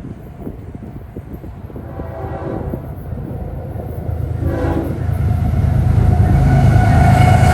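Approaching train: the rumble of its diesel locomotive grows steadily louder, and the horn sounds briefly about halfway through.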